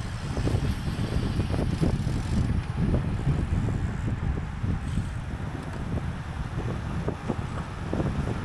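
Wind rushing over the microphone of a bicycle ridden at racing speed: a steady low rumble with no clear pitch.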